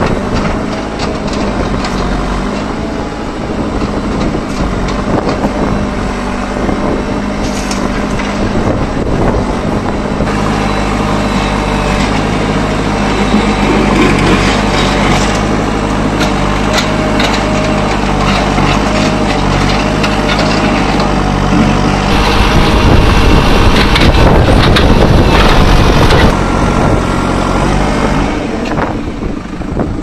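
JCB 3CX backhoe loader's diesel engine running steadily, growing louder for a few seconds about two-thirds of the way through, with occasional knocks.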